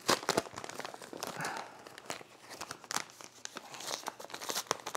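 Brown paper mailer being torn open and crinkled by hand: a run of irregular sharp crackles and rips of paper.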